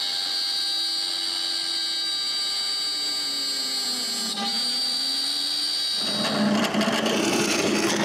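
CNC router spindle cutting a hole in plywood: a steady high whine with a lower tone that wavers up and down. About six seconds in it gives way to a drill press boring into plywood, a rougher, noisier sound.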